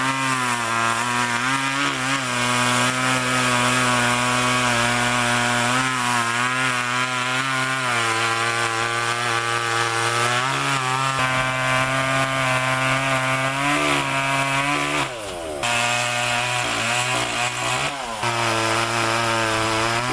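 Two-stroke chainsaw cutting into wood, the engine running hard and steady with small dips in pitch as the chain bites. About fifteen seconds in it briefly eases off and then revs back up.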